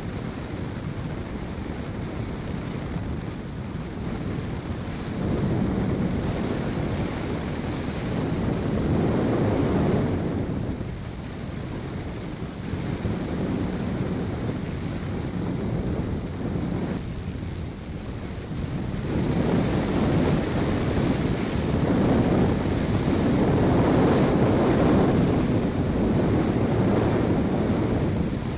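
Airflow rushing over the onboard camera microphone of an RC plane in flight, swelling and easing as the plane manoeuvres, louder twice for several seconds, with a steady high whine running underneath.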